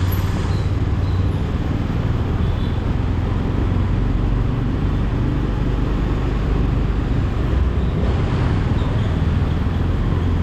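Steady road noise from a two-wheeler riding through city traffic: its engine running and the rush of the ride, with no horns sounding.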